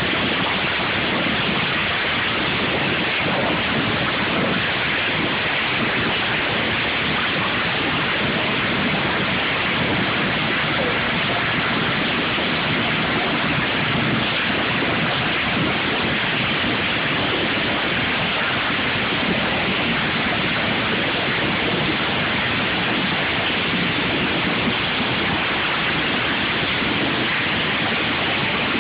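Steady loud din of many racing lawn mower engines running together, blurred into an even rushing noise with no single engine standing out.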